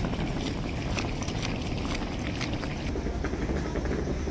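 Footsteps on paving stones, irregular short clicks over the steady hum of a busy city street.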